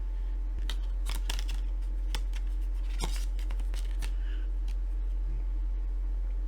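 Clicks and rustles of plastic Blu-ray disc cases being handled and opened, a quick run of sharp clicks and scrapes about a second in and again around three seconds in, over a steady low electrical hum.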